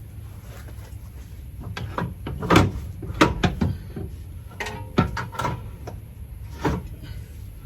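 Irregular clanks and knocks of metal tools and steering parts being handled under a car, a few of them ringing briefly, over a steady low hum.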